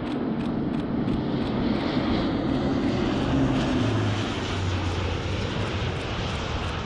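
Airbus A400M Atlas turboprop transport flying low past, its propeller and engine drone swelling to a peak and dropping in pitch about halfway through as it goes by.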